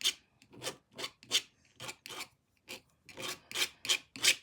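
Paint strokes rubbing over the surface of a jigsaw puzzle being painted: about a dozen short scrubbing strokes in an uneven rhythm, two to three a second.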